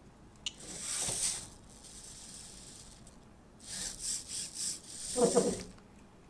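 Petoi Bittle robot dog's small servo motors whirring in short bursts as it moves its legs and shifts posture: a click, a whir about a second in, four quick pulses of whirring around four seconds, then a lower clattering rattle about five seconds in.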